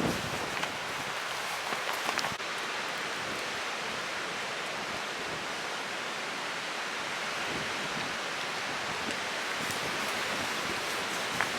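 Steady rushing of wind and surf on an open beach, with a few light knocks about two seconds in and again near the end.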